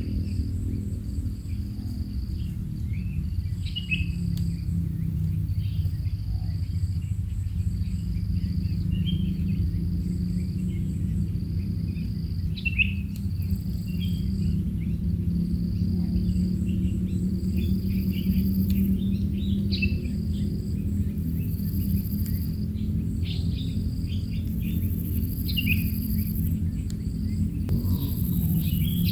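Insect chirping that repeats evenly about every two seconds, mixed with scattered short bird chirps, over a steady low hum.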